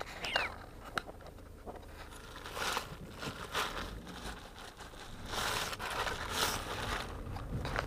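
Handling noise from a small handheld camera: fabric and hands rubbing over the microphone in several short rustling bursts, the longest a little after the halfway point. A low steady rumble runs underneath.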